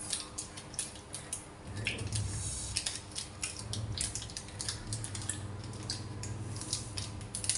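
Candy wrapper crinkling as it is peeled off a piece of banana-peanut candy by hand: a rapid, irregular run of small crackles. A low hum sits underneath through the middle of it.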